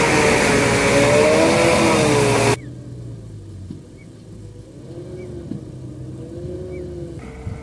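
Hino truck's diesel engine labouring under a heavy stone load close by, its pitch rising and falling slightly. About two and a half seconds in it cuts off abruptly to a much fainter engine note from a truck in the distance.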